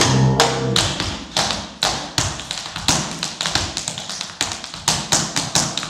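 Tap shoes striking a hard floor in a quick, uneven rhythm of sharp taps, several a second, in a run of tap dance steps.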